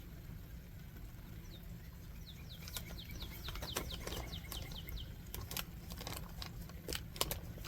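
A bird singing a quick run of short down-slurred chirps, followed a few seconds later by several sharp clicks, over a steady low rumble.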